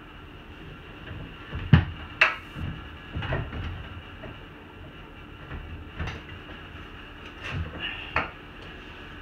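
Clunks and knocks of a Honda Pioneer's stock front bumper bumping against the front frame as it is held up and shifted to line up its mounting holes. The sharpest knock comes nearly two seconds in, followed by several lighter ones.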